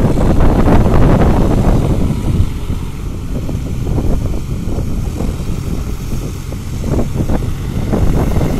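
New Holland 4710 4x4 tractor's diesel engine running steadily under load as it works a flooded rice paddy, heard as a rough low rumble that is louder in the first couple of seconds.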